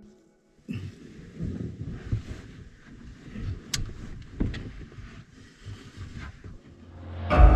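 Wind gusting across the microphone, an uneven low rumble that rises and falls, with a sharp click about halfway through. Music comes in near the end.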